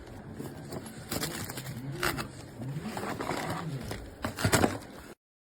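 Puppy making low grumbling vocal sounds that rise and fall in pitch, twice, mixed with knocks and rustles of handling. The loudest knocks come near the end, and the sound cuts off suddenly just before the end.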